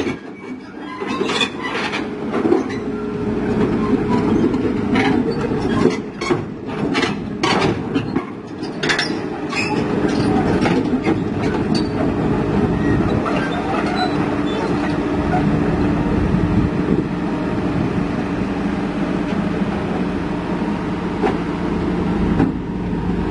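Komatsu PC200 hydraulic excavator crawling off a truck's deck: diesel engine running steadily under its steel tracks, which clank sharply and often for the first ten seconds or so, after which mostly the engine is heard.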